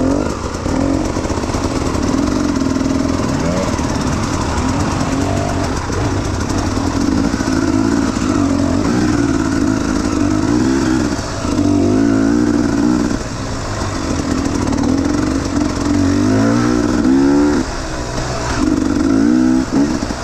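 Enduro dirt bike engine running as the bike is ridden, its revs rising and falling with the throttle, with several quick revs near the end.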